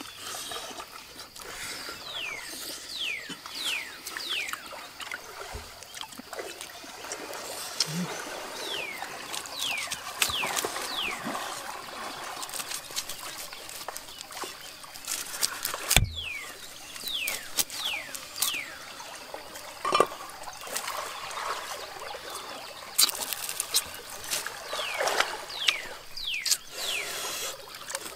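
Stream water trickling, with the handling and mouth sounds of eating and a sharp knock about halfway through as a knife cuts into a gourd shell. Short falling chirps recur throughout.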